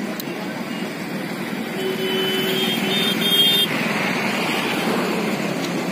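Steady outdoor traffic noise, with a horn sounding near the middle: one longer blast followed by two short ones.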